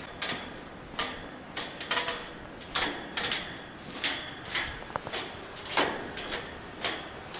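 Footsteps crunching through snow at a brisk walk, about two steps a second.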